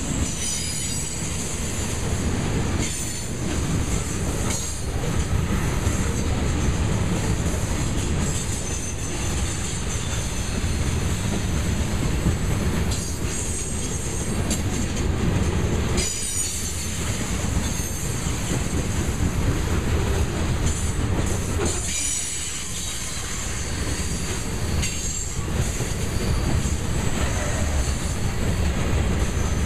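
Grain train's covered hopper cars rolling steadily past, a heavy rumble with rhythmic clacking of wheels over the rail joints and thin high wheel squeal.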